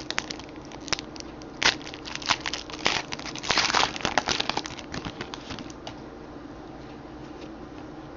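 Baseball card packaging crinkling and crackling as it is torn open and handled, a run of sharp crackles and clicks that dies away about six seconds in, leaving a faint steady room hum.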